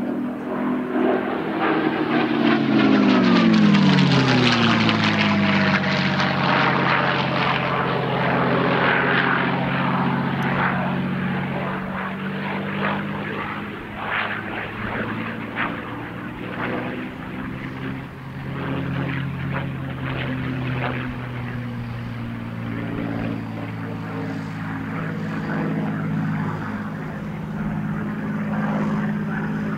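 P-51D Mustang's Packard-built Merlin V12 engine as the plane flies past. It is loudest a few seconds in, and its pitch drops as it goes by. It then carries on as a steady propeller drone.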